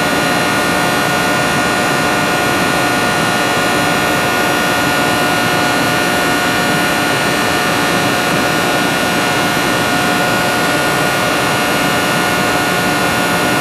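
Running machinery: a steady, loud rushing noise with a constant hum, unchanging throughout.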